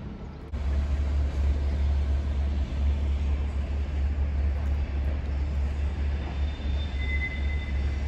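A passing electric train, a loud steady low rumble, with brief thin high tones near the end.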